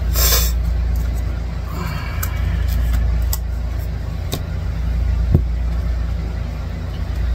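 Steady low rumble, with a short rustle right at the start and a few light clicks.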